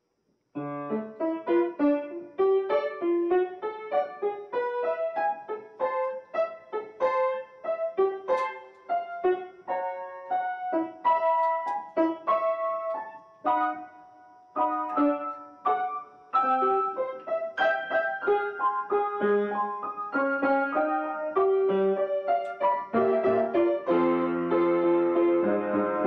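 Solo piano improvisation. After a moment of silence a quick, wandering melody of single notes begins, and near the end it thickens into fuller sustained chords with low bass notes.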